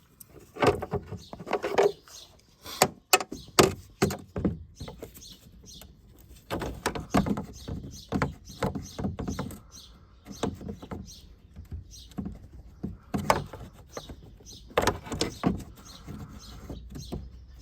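Irregular clicks, knocks and scraping of hands and tools working at a stuck pipe connection in a car's engine bay.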